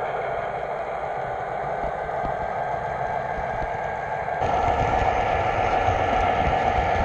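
Model train running on three-rail track: steady motor hum and rolling wheel noise, which steps up louder about four seconds in.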